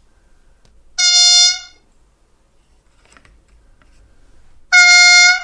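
Two short blasts of a recorded Unimog horn played by the sound decoder through the 20 mm oval loudspeaker of a Märklin 39940 H0 model, about a second in and again near the end. The first sounds with the speaker's tarp cover off, the second with the cover fitted back over its sound openings and resonance chamber.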